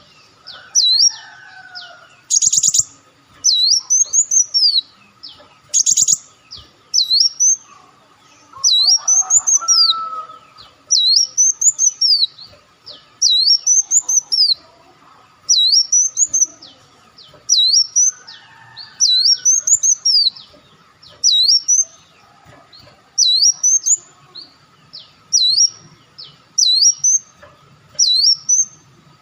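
Sunbird song: a fast run of high, arched whistled notes, about two a second. A few short buzzy rattles come in early on, and lower warbled phrases come in now and then.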